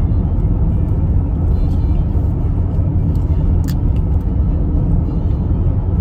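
Steady low road rumble inside a moving car's cabin, with a single short click about halfway through.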